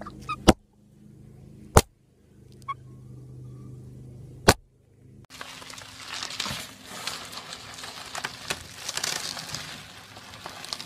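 Three sharp clicks over a faint hum. Then, from about five seconds in, a cat wriggling through a green plastic mesh sleeve on carpet: a steady crackling rustle of the plastic, full of small ticks.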